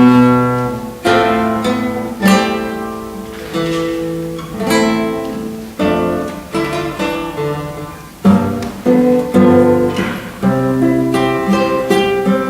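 Acoustic guitar playing strummed chords, struck about once a second and left to ring and fade between strokes.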